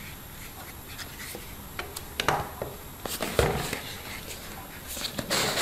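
Cardboard product box and packaging being handled on a wooden table: scattered light taps, knocks and rubs, with a louder rustle near the end.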